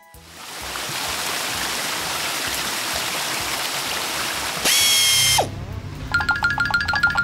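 Cartoon water-jet spray sound effect: a steady hiss of spraying water for about four and a half seconds, then a short bright ringing effect that ends in a falling glide. Bouncy music with a quick repeated plinking note starts about six seconds in.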